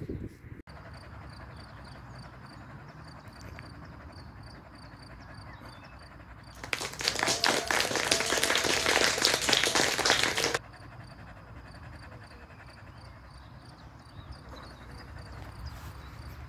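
A steady outdoor background with a faint, evenly repeated high chirping. About a third of the way in, a loud, dense crackling rustle starts, runs for about four seconds and cuts off suddenly.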